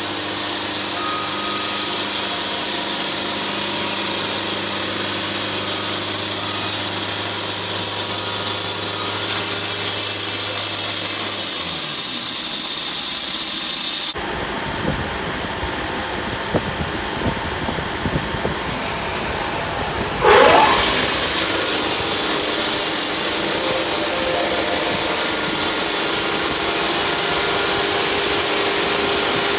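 Sawmill running and cutting through a log, a loud steady whir. About halfway it drops suddenly to a quieter clatter for several seconds, then the loud cutting noise returns.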